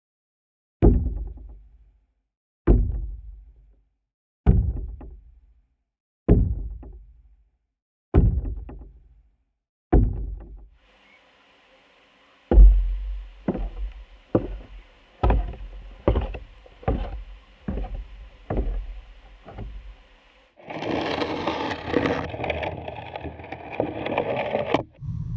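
Knocks on weathered wooden railing and deck boards picked up through a piezo contact microphone on the wood, each a deep thud with a low ringing decay. Six knocks come evenly about two seconds apart. Then a quicker, uneven run of knocks follows over a faint steady hum, and near the end a dense rough rubbing or scraping on the boards lasts about four seconds.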